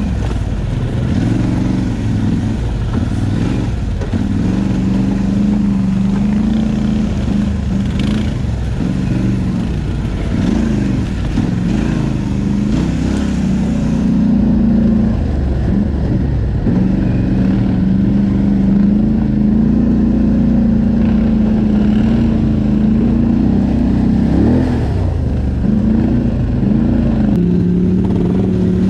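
ATV engine running under a rider's throttle, its pitch rising and falling through the first few seconds and again near the end, with long steady stretches in between.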